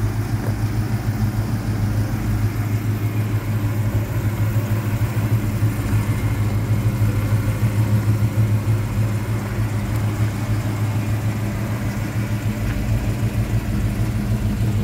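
1975 Chevrolet Caprice's V8 engine idling steadily, a low, even hum with a light, regular pulse.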